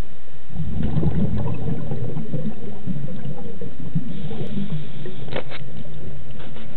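Underwater bubbling from a scuba diver's regulator exhaust as the diver breathes out, starting about half a second in and gurgling on irregularly. A few sharp clicks about five seconds in.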